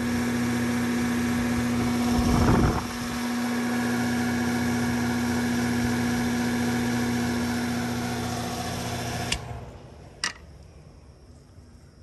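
Air-conditioner condenser unit running with a steady, loud hum from its fan motor, now spinning the right way on a substitute run capacitor; the tech suspects the motor has internal damage from running in reverse for a long time. The hum cuts off suddenly about nine seconds in, followed by a single click.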